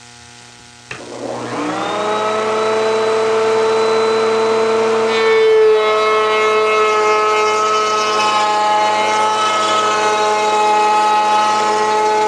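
Table-mounted wood router switched on about a second in, its motor spinning up to a steady high whine. About five seconds in, the round-over bit starts cutting the edge of the wood and the tone shifts and turns rougher under load as the cut goes on.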